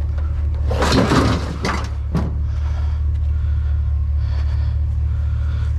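A flat-screen TV being loaded into a pickup bed piled with scrap metal and junk: a clatter of knocks about a second in and another knock after two seconds, over a steady low hum.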